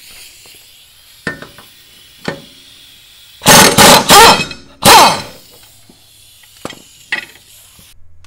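Air impact wrench hammering in four short bursts about three and a half to five seconds in, spinning loose the blade bolt on a zero-turn mower deck spindle. A few lighter clicks come before and after as the socket is set on the bolt and taken off.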